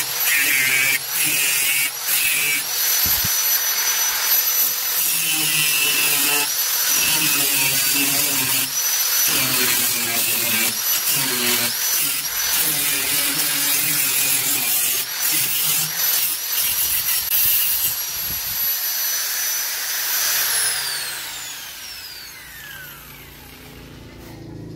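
Angle grinder with a cutting disc slicing through diamond-pattern checker-plate sheet metal: a loud high motor whine over the grating of the cut, with frequent brief dips as the disc is worked along the line. About twenty seconds in, the grinder is switched off and its whine glides down as the disc spins to a stop.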